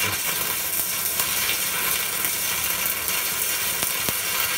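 Stick-welding arc from an AP Welding MMA-400 inverter welder, crackling steadily with a few sharper pops. The machine is being run to test its maximum output current.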